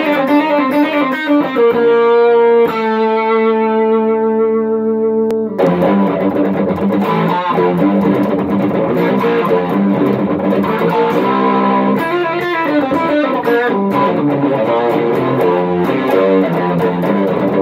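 Electric guitar music: a few opening notes, then a chord left ringing for about three seconds, then busy riffing.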